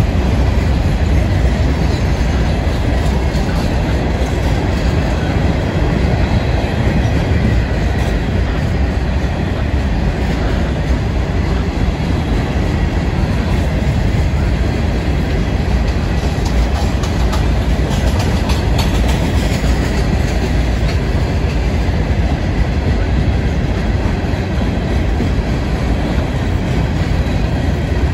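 Freight train's hopper and tank cars rolling past: a loud, steady rumble of steel wheels on rail with clickety-clack.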